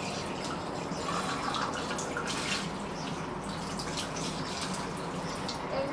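Kitchen tap running steadily, its water splashing onto a drinking glass being rinsed and into a stainless-steel sink.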